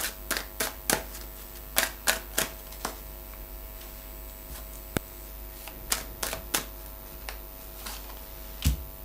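Tarot cards being shuffled and handled: a run of sharp, irregular clicks and snaps in short clusters, over a steady low mains hum.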